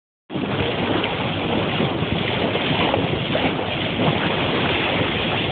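Wind buffeting the microphone over the steady rush of water along the hull at the bow of a moving boat.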